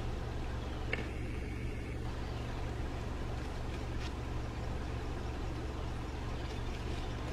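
Steady low rumble with a faint hiss, a vehicle engine running.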